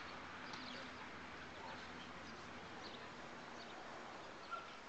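Faint open-air ambience with a few distant bird chirps scattered through it and one short, louder chirp near the end.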